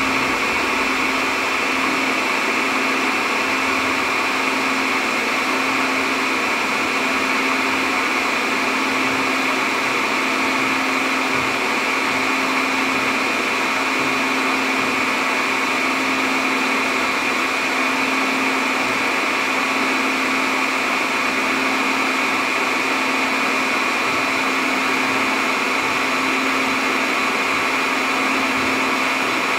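Cooling fans of a Dell PowerEdge R720xd rack server running steadily while it boots: an even whir with a low hum under a high whine.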